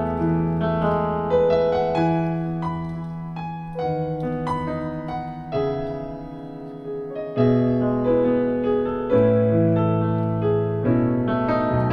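Piano playing a slow worship song, chords and single notes struck and left to ring, changing every second or two.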